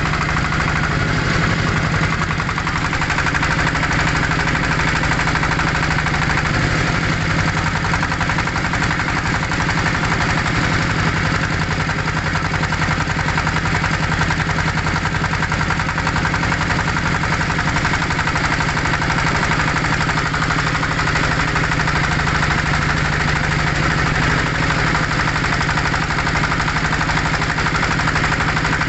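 Motorboat engine running steadily with a fast, even chugging that does not change pace.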